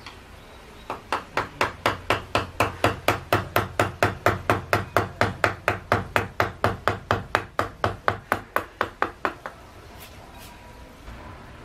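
Wooden mallet tapping a carving chisel into cedar wood, a quick steady run of strikes at about four or five a second. It starts about a second in and stops a couple of seconds before the end.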